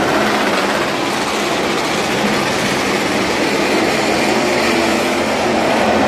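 MotoGP racing motorcycle engines running: a loud, steady wash of engine noise whose pitch drifts slowly up and down.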